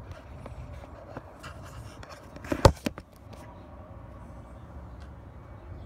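Handling noise from a phone camera rubbing and knocking against clothing: scattered rustles and clicks over a low rumble, with one sharp knock about two and a half seconds in.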